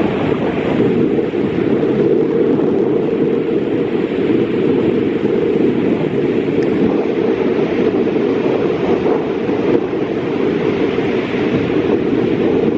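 Strong wind buffeting the microphone over the steady wash of ocean surf, cutting off abruptly at the end.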